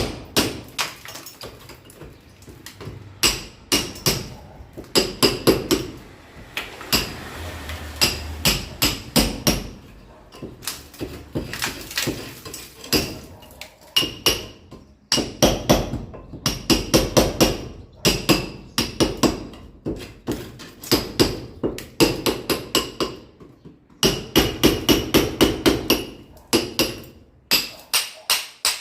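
Hammer blows on building work, struck in quick runs of several strokes with short pauses between runs. Each blow has a bright metallic ring.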